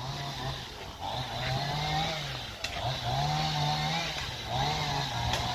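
Two-stroke chainsaw engine revving up and easing off again and again, about five rises in pitch.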